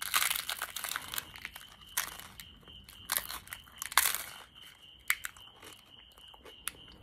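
Close-up crunching and chewing of a crisp corn tostada topped with beans and sardines, bitten into and chewed. The loudest crunches come at the start and again about two and four seconds in, then thin out to softer chewing.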